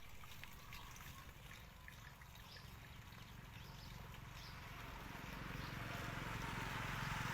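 Faint outdoor ambience: a low steady rumble with a few scattered faint clicks, slowly growing louder toward the end.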